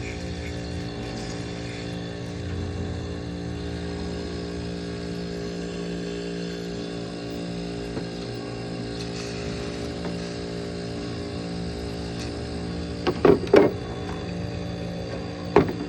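Reciprocating compressor of a 1970s Carrier 5200 BTU window air conditioner running with a steady hum, on its first start after decades of sitting, while the unit's fan is still stuck. A few brief, louder knocks come about three-quarters of the way through and near the end.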